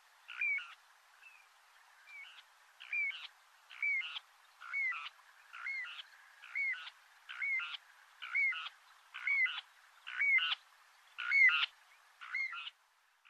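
An animal calling over and over, about once a second, each call a short note that bends down in pitch. A couple of calls early on are fainter, and the loudest comes near the end.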